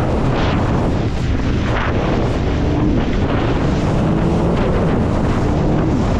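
Wind buffeting the microphone on a moving jet ski, with water rushing and several hissing surges of spray, and the jet ski's engine whine shifting up and down beneath it.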